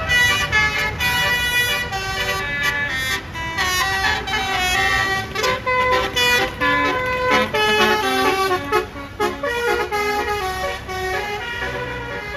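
Bus 'telolet' basuri air horn playing a melody of quick stepped notes, several horn tones sounding together, over the low rumble of the bus engine.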